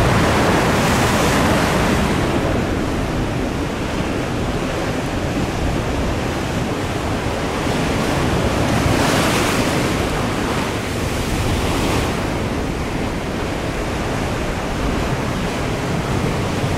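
Heavy sea surf breaking and washing over a rocky shore, a continuous rushing that swells in surges as waves crash, notably near the start and about nine and twelve seconds in.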